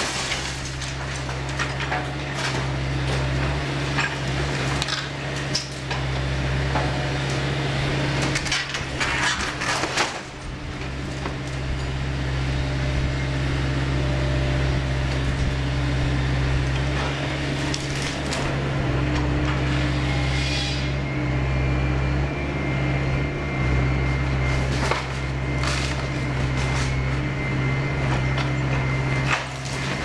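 Hydraulic excavator's diesel engine running steadily while its demolition attachment rips into a wooden building, with repeated cracking and splintering of timber and crashes of falling debris, busiest in the first ten seconds.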